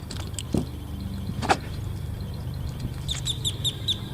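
A bird chirping a quick run of about six short notes near the end, over a steady low background rumble, with a couple of light clicks earlier on.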